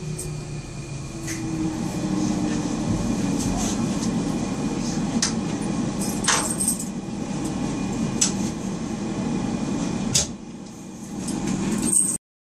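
Docklands Light Railway train running slowly into its terminus platform, heard from inside the car: steady rumble of wheels and motors with scattered clicks and rattles, easing briefly around ten seconds in. The sound cuts off abruptly near the end.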